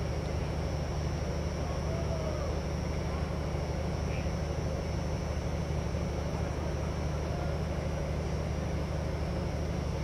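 Steady low hum and hiss of background noise, with a constant faint high tone, and faint distant shouts of players now and then.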